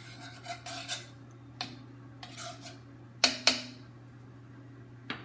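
A utensil scraping and clinking against a pan as browned bits are scraped from the bottom into the sauce, with two sharp knocks in quick succession about three seconds in. A steady low hum runs underneath.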